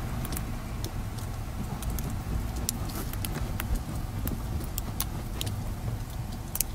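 Steady low outdoor rumble with many faint scattered clicks.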